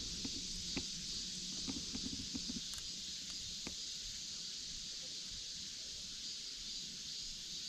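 A steady high-pitched chorus of summer insects. Faint small clicks and rustles of handling gear come in the first few seconds.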